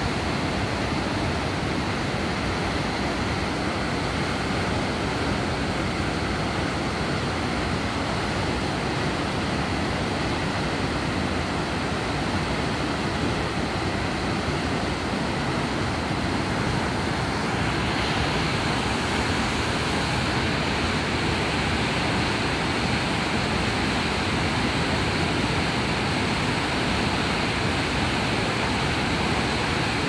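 Senga Falls, a large waterfall plunging into a rocky pool, rushing steadily as a dense, even roar of falling and churning water. The high hiss grows a little brighter a little past the middle.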